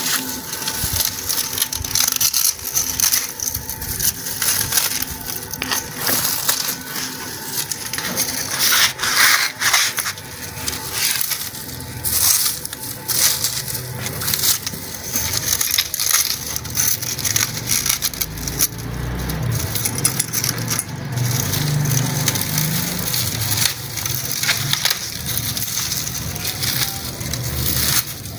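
Old, hardened khus pad on a room cooler's metal frame being pulled and torn out by hand: continuous crackling and rustling of dry, brittle fibres, with many small snaps.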